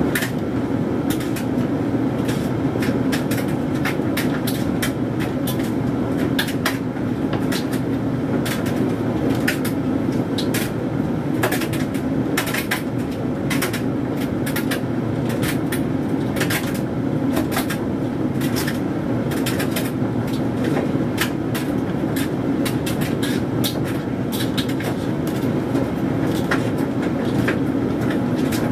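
Hoover Dynamic Mega condenser tumble dryer running mid-cycle: a steady motor and drum hum with frequent, irregular light clicks and taps as the wet synthetics load tumbles in the drum.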